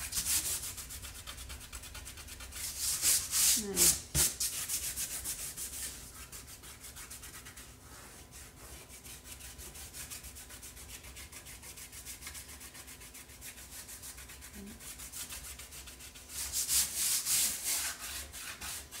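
Fingers rubbing dried masking fluid off watercolour paper, in rapid strokes, with two louder spells of vigorous rubbing, a few seconds in and near the end.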